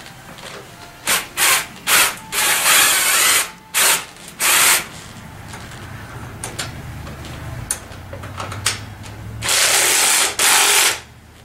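Socket ratchet being worked back and forth to tighten the kickstand bolts on a scooter frame, its pawl ratcheting in several short bursts and two longer runs, about three and ten seconds in.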